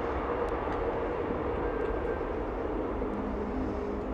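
Steady rumble of distant motorway traffic, with a faint steady hum over it.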